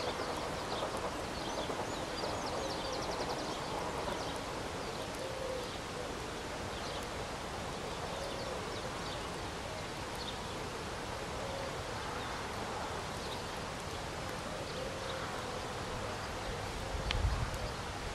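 Open-air ambience with scattered high bird chirps over a steady hiss, and a faint low tone returning about every three seconds. Wind buffets the microphone near the end.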